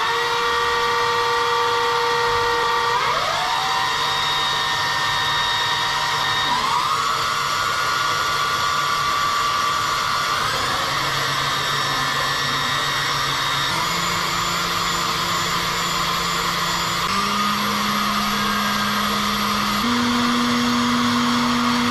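Milling machine spindle running with a steady whine whose pitch steps up in short, smooth glides every three to four seconds, as the spindle speed is raised in stages.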